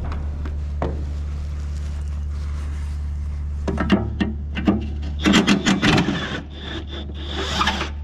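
A socket wrench scraping and clicking on a metal bolt as it is worked loose, with a quick run of sharp clicks a little past the middle, over a steady low hum.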